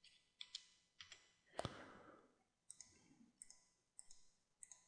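Faint clicking of a computer mouse, mostly in quick press-and-release pairs, about seven times, with one duller knock about a second and a half in.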